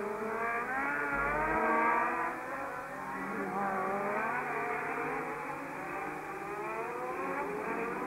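Several 1970s Formula One racing engines at high revs as cars go past, the notes of more than one car overlapping, each pitch climbing and then dropping again and again through gear changes and passes.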